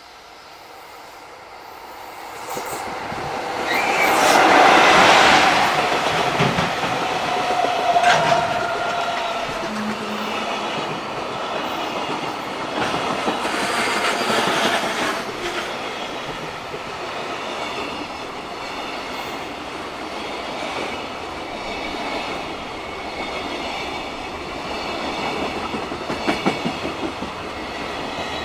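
A JR freight train passing close by a level crossing. The sound builds over the first few seconds and is loudest about four to six seconds in as the locomotive goes by, then a long string of freight wagons follows, rolling past with a steady clickety-clack of wheels over the rail joints.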